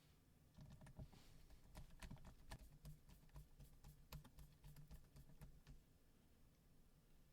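Faint, irregular clicking and tapping, many small clicks in quick succession over the first six seconds, then very quiet.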